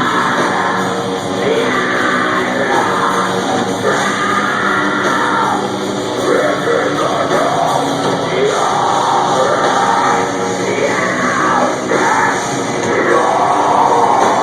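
Live metalcore band playing at full volume: distorted guitars and drums under screamed vocals.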